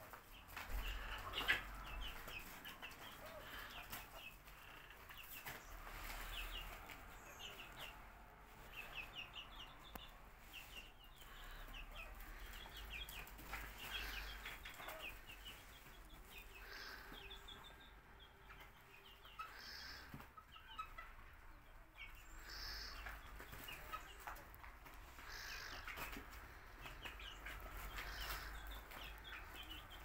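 Chickens cheeping and clucking: a steady stream of short, high peeps, several a second, goes on throughout.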